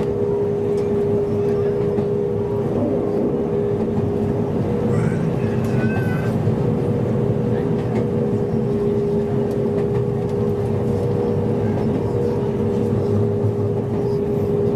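Kobe Electric Railway electric train running along the line, heard from inside the front car: a steady rumble of wheels on rail with a steady humming tone over it. A brief faint high squeal comes about six seconds in.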